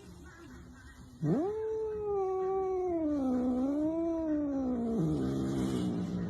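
A cat yowling: one long drawn-out call starting about a second in, rising sharply at first, then slowly sinking and wavering in pitch for about four and a half seconds.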